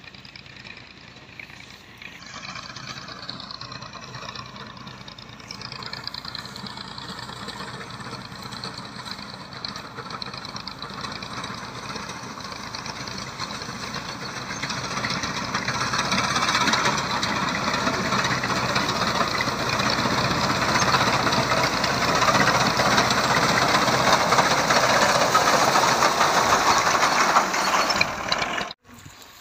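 Tractor engine running under load while its front-mounted reaper cuts standing wheat. The sound grows louder over the first half, stays loud and steady, then breaks off sharply near the end.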